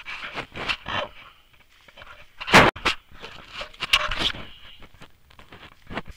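Footsteps and legs brushing through tall dry grass on a steep hillside, with hard breathing from the walker. There are irregular rustles throughout, the loudest about two and a half seconds in and another cluster around four seconds.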